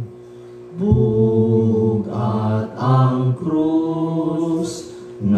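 A man singing a slow Cebuano hymn with no audible accompaniment, holding long drawn-out notes. There is a short pause for breath at the start and another near the end.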